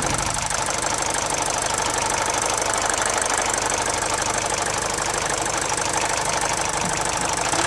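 Mercedes OM601 four-cylinder diesel idling steadily with its ordinary diesel clatter. The timing-chain knock is gone now that the leaking head gasket has been replaced and oil pressure again reaches the chain tensioner.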